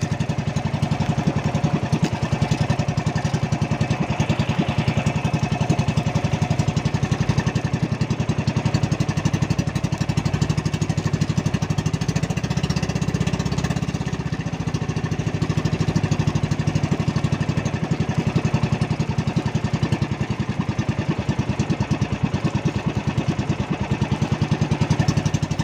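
Outrigger fishing boat's engine running steadily under way, a fast, even pulsing beat that holds level throughout.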